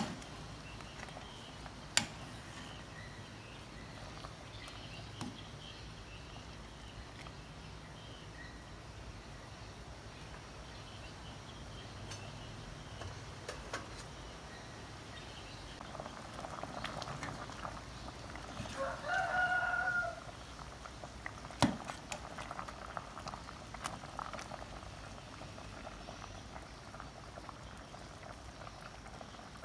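Beef green curry simmering and bubbling in a stainless steel pot on a gas burner, with a steady low background sound. Two sharp metallic clinks come, one early and one about two-thirds of the way in, and a short pitched call sounds just before the second clink.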